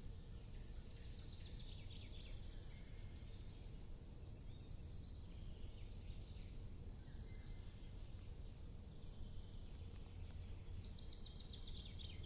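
Songbirds singing: several trilled phrases and short high chirps come and go, with a steady low hum underneath.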